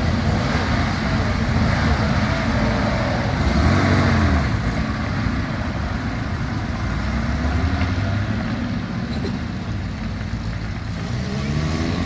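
Car engines idling and revving as cars move off slowly in a line. The loudest rise and fall in revs comes about four seconds in, with more revving around eight seconds and near the end.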